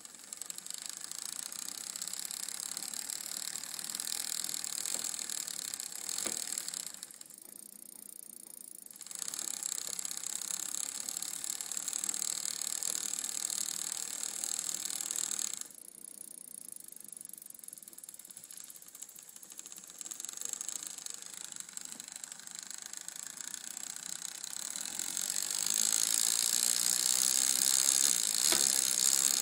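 Bicycle chain running through the rear derailleur, with a fast clicking from the chain rubbing on the derailleur. It drops quieter twice and is loudest near the end.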